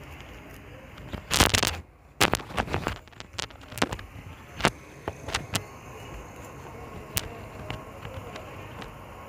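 Irregular sharp clicks and crackles over a steady low hiss: a short rustling burst about a second in, then a quick run of clicks that thins out over the next few seconds.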